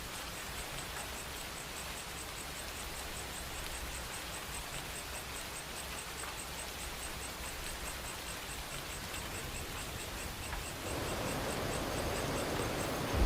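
Steady noise of light rain and a flowing river, with an insect chirping high and faint in an even pulse of about four a second. The rain noise grows louder near the end.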